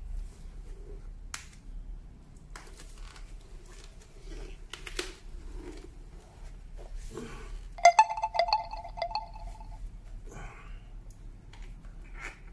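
Open-face motorcycle helmet being pulled on over the head and worked down with the hands: rustling, scraping and light clicks of the shell, padding and protective film. About eight seconds in, a pitched squeak lasts roughly two seconds.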